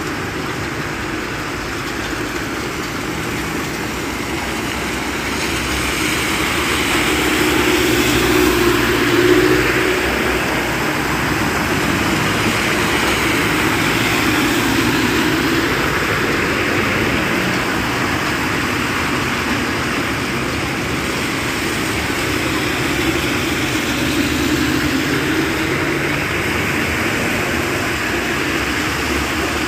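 Cars driving slowly through standing water on a flooded street: engines running and tyres swishing through the water. Several vehicles pass one after another, the loudest about a third of the way in.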